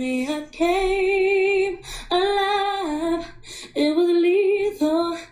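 A woman singing with no accompaniment, holding long notes that waver slightly and step up and down in pitch, in phrases of about a second broken by short gaps.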